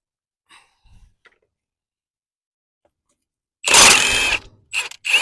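A power drill or driver running on the PTO assembly bolts with a steady motor whine: one run of just under a second about three and a half seconds in, then short bursts.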